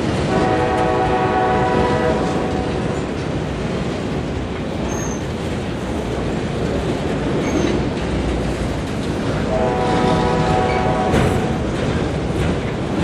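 Autorack freight cars of a CSX train rolling past: a steady rumble and wheel clatter. A train horn sounds twice over it, held about two seconds each time, once just after the start and again about ten seconds in.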